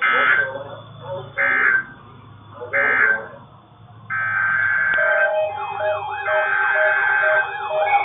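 Three short screeching data bursts from an EAS weather radio broadcast, the end-of-message signal closing a severe thunderstorm warning. From about four seconds in, weather radio alert tones start: steady tones with a rising-and-falling siren sweep and a fast pulsing beep over them.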